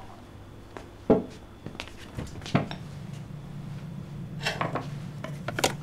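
Kitchen clatter of dishes and cutlery being handled: a few separate clinks and knocks, the sharpest about a second in. A low steady hum comes in about two seconds in.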